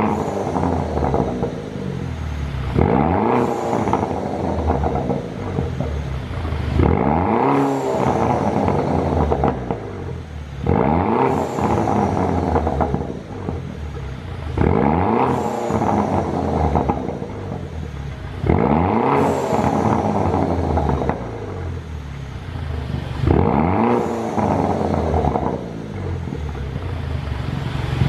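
2009 Mini Cooper S's 1.6-litre turbocharged N14 four-cylinder, its exhaust tuned for pops and crackles on the overrun, blipped from idle about every four seconds. Each time the revs rise sharply, then fall away with crackling before it settles back to idle.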